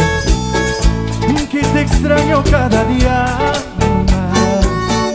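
A live tropical cumbia band playing with a steady beat, about two hits a second: electric keyboard, electric guitars and drums.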